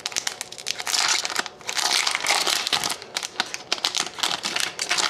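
Crinkling and crackling of a hockey card pack's foil wrapper as it is torn open and handled.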